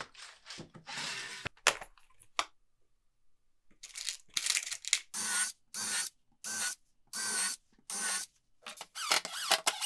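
A plastic screw organizer case handled and opened, with clicks and screws clattering inside. Then a Craftsman cordless drill/driver runs in about eight short trigger bursts, drilling countersink pilot holes and driving flathead screws into the pine guide-rail board.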